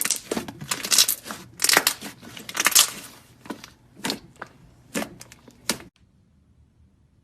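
Slime being squeezed and kneaded by hand, giving irregular sticky crackling squelches that cut off abruptly about six seconds in.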